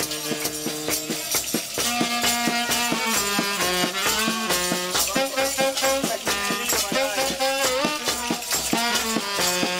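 Small live band playing a lively tune: a saxophone melody over drums with a steady beat.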